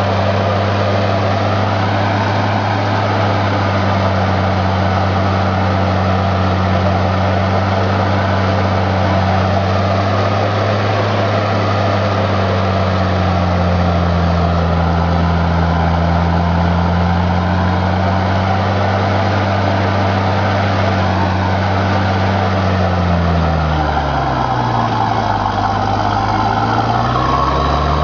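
John Deere 7700 tractor's six-cylinder diesel engine running steadily under load, pulling a rotary harrow, heard from the cab. Near the end the engine note sinks and then climbs back up.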